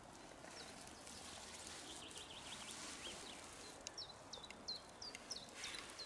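A small songbird twittering, then giving a run of short, sharp chirps that each drop in pitch, about two a second, over the steady rush of a river.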